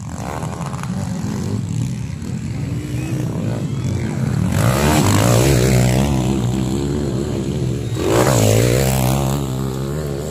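Motocross dirt bike engines running and revving on a dirt track, with two loud surges in engine pitch and level, one around the middle and one near the end.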